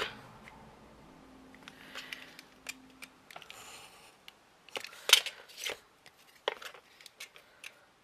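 Snap-off craft knife cutting grey card along a metal ruler: a run of short, sharp scraping strokes, loudest about five seconds in, after a fainter scratching of card and ruler being handled.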